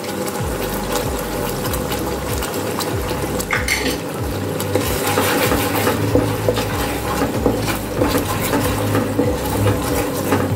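Wooden spatula stirring and scraping a thick spice paste against a non-stick pan, with irregular knocks and scrapes and a light sizzle of the paste frying in oil. A steady low hum runs underneath.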